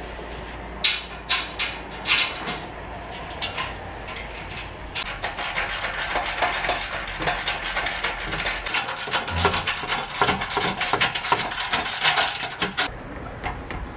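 Wrench and bolts clinking against a steel exhaust pipe flange as the last section of the exhaust is bolted up. From about five seconds in, a fast run of metallic ratcheting clicks goes on for several seconds and stops sharply near the end.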